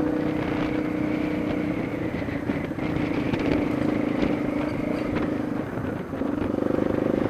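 Yamaha Lander 250's single-cylinder engine running under way, a steady engine note that dips briefly about two seconds in and again around six seconds, then comes back louder near the end.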